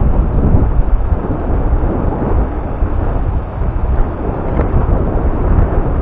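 Wind buffeting the camera's microphone on an open dune: a loud, uneven low rumble that rises and falls without a break.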